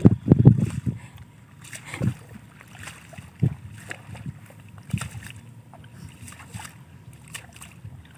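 Wading through a flooded rice paddy: feet sloshing and splashing in shallow water and mud. A quick run of louder sloshes comes in the first second, then scattered single splashes.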